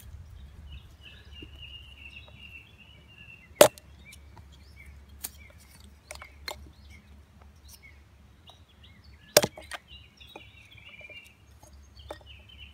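Small camp axe chopping seasoned wood into kindling on a log: two sharp chops about six seconds apart, with lighter knocks of wood in between. A bird chirps in the background.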